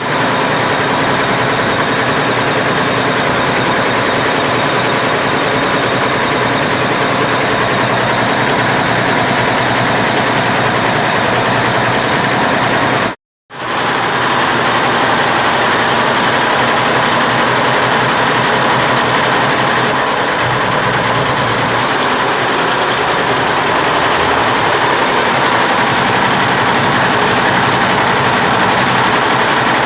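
Computerized embroidery machine running and stitching steadily, a dense mechanical clatter with a faint steady whine; it cuts out for a moment about thirteen seconds in.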